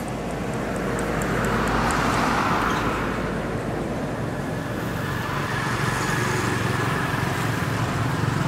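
Road traffic: a passing vehicle's tyre noise swells and fades over the first few seconds, over a steady low traffic rumble.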